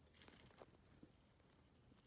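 Near silence: room tone with a few faint ticks in the first second or so.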